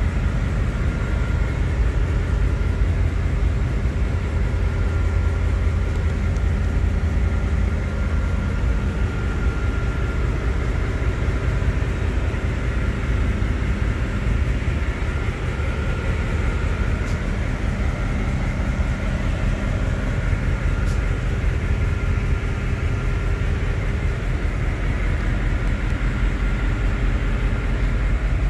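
Steady loud drone of a container ship's engine-room machinery running, deep and even, with a thin high steady whine over it.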